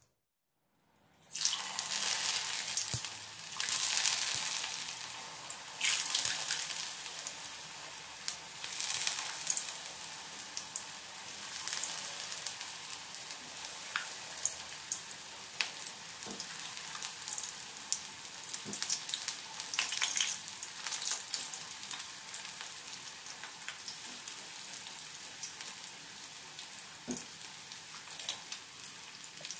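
Batter-coated sweet potato sticks deep-frying in hot oil in a wok: a dense crackling sizzle that starts about a second in. It surges several times in the first ten seconds as more pieces go into the oil, then settles to a steadier sizzle with scattered pops.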